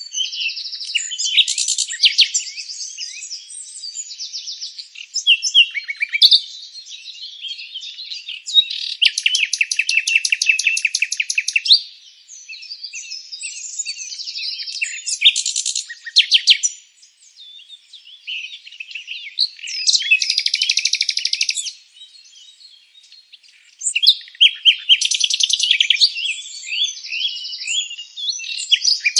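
Several birds chirping and singing over one another. There are stretches of rapid, high trills lasting two or three seconds each, with quieter gaps of scattered chirps between them.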